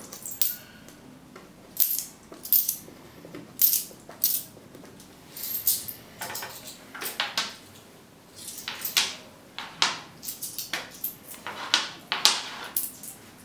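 Silver-coloured coins being set down one by one on a round wooden board: a scatter of light, irregular clicks and taps.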